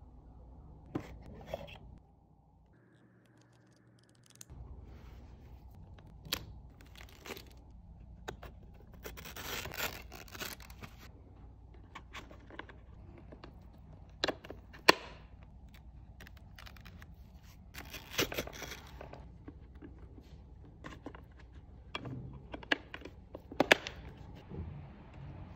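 Handling noise from fitting a Shockpods speaker kit into a Ruroc helmet: scattered sharp plastic clicks and knocks, with two rasping tearing sounds of about a second each, around ten seconds in and again near eighteen seconds.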